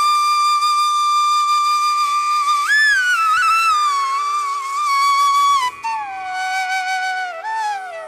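Background music: a slow solo melody of long held notes with smooth pitch slides over a steady drone.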